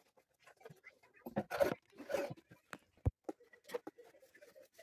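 Wooden pieces being handled and rubbed together: two short scraping strokes, then a single sharp tap about three seconds in.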